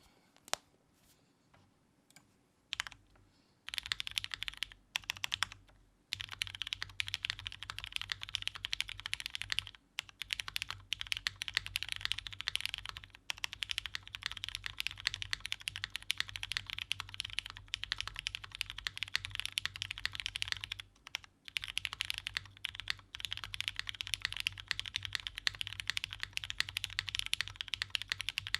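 Typing on a custom mechanical keyboard, a DN Ryujin prototype with lubed Cherry MX Hyperglide Brown tactile switches on a UHMWPE plate, o-ring mounted, with GMK keycaps. A few single keystrokes give way to fast continuous typing from about four seconds in, broken by a few brief pauses.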